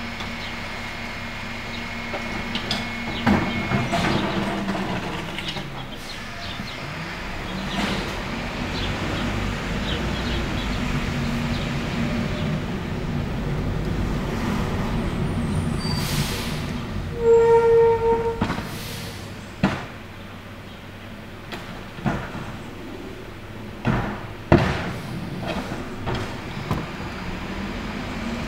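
Rear-loading garbage truck at work: its diesel engine runs steadily and picks up as the truck moves off. A thin steady whine cuts off about three and a half seconds in. A short, loud beeping tone comes about seventeen seconds in, and several sharp metallic bangs of bins and truck body come through the second half.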